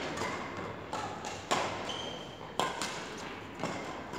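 Badminton rackets striking a shuttlecock in a rally: three sharp hits about a second apart, each followed by a short echo from the large hall.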